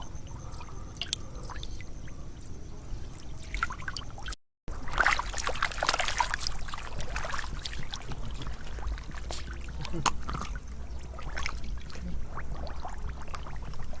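Water splashing and trickling irregularly as hands work through shallow water, cutting out briefly about four and a half seconds in and busier just after.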